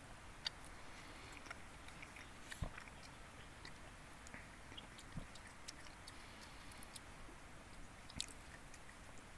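A young child chewing food quietly, with a few faint mouth clicks and smacks scattered over a low background hush.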